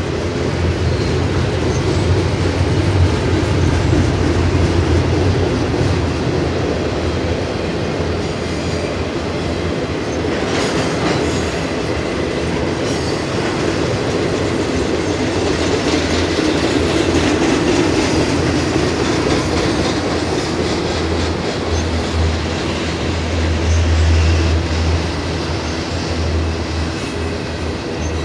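BNSF intermodal freight train's container cars rolling past: a steady, loud rumble of steel wheels on rail. A low hum swells in the first few seconds and again about three quarters of the way through.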